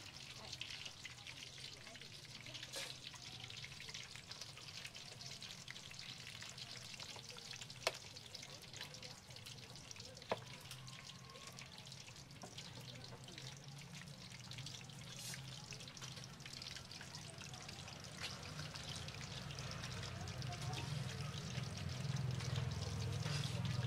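Battered balut eggs deep-frying in hot oil in a wok, a steady crackling sizzle, with two sharp metal clicks of the tongs against the pan in the middle. A low hum builds in the background near the end.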